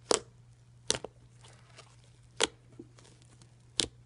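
Fluffy whipped-cream slime being squeezed and stretched, popping its trapped air bubbles: four sharp pops about a second or so apart.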